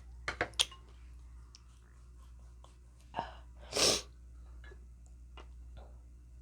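A person sneezes once about three seconds in: a short catch of breath, then a sharp, noisy burst. A few light clicks come in the first second.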